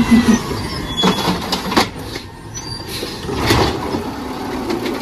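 Automated side-loader garbage truck running steadily, with a few knocks and clatters as its mechanical arm grabs and lifts a wheelie bin.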